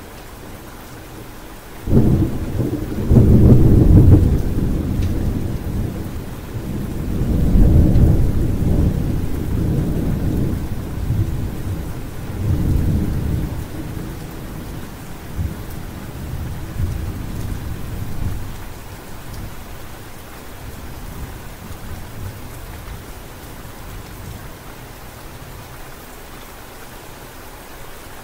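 Steady rain with thunder: a sudden crack about two seconds in, then deep rumbling that rolls on in several waves and dies away over the next fifteen seconds or so, leaving the rain alone.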